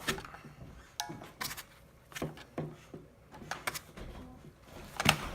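Scattered clicks and knocks of hard parts on a full-metal airsoft Mk12 rifle being handled, as a wrongly fitted part is worked loose; the loudest knock comes near the end.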